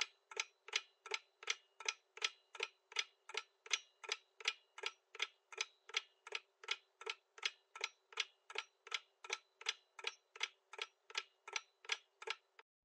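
Quiz countdown-timer sound effect: a steady clock-like ticking, about three ticks a second, that stops just before a chime.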